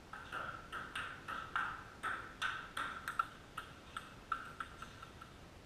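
Table tennis rally: a ping-pong ball clicking off paddles and the table, about three quick hits a second. The hits stop shortly before the end.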